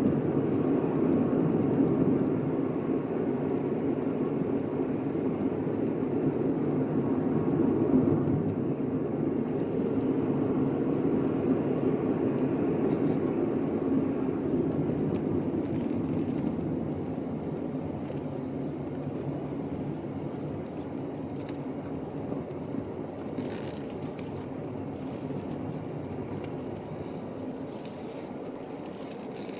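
Car engine and tyre noise heard from inside the cabin while driving, a steady low hum that grows quieter in the second half.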